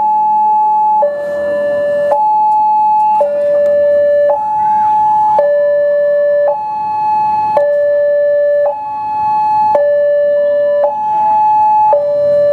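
Railway level-crossing warning alarm sounding while the crossing is closed: an electronic two-tone signal switching steadily between a higher and a lower pitch, each tone held for about a second, warning of an approaching train.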